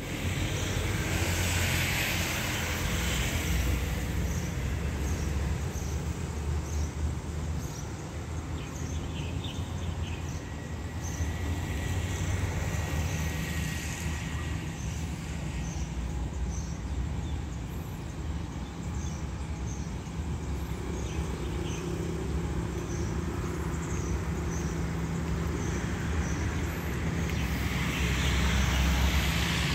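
Steady low rumble of distant engines, with faint repeated high chirps above it. From about two-thirds through, a steady engine hum joins in as a diesel train approaches the station.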